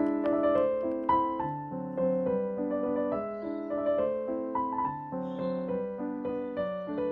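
Background piano music: a gentle melody of single notes and chords changing about every half second.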